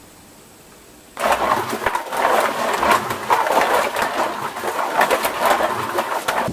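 Quad roller skate wheels rolling and clattering across a hardwood floor. The sound starts abruptly about a second in and goes on as a loud, rough rumble full of small knocks.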